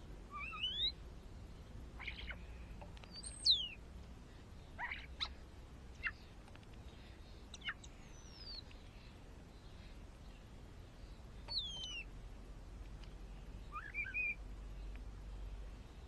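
Garden birds calling: a scatter of short chirps and quick whistled sweeps. The loudest is a falling whistle about three and a half seconds in, and there is another near twelve seconds.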